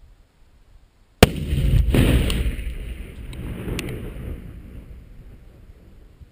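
10 lbs of Tannerite in an ammo can detonating when hit by a rifle bullet: one sharp, very loud blast about a second in, then a long rumble that fades over several seconds, with a few sharp ticks along the way.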